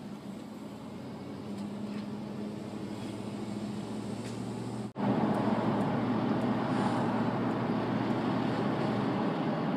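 Steady engine hum and road noise of a moving car heard from inside the cabin. About five seconds in it cuts out for an instant and comes back louder, with more tyre rumble.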